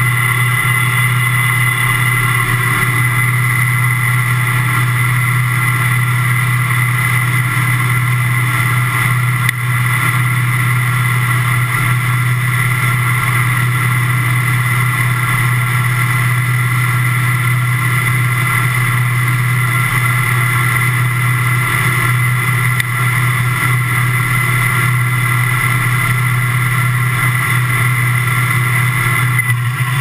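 Combine harvester running steadily while harvesting corn: a constant engine and machinery drone with a low hum and a steady high whine.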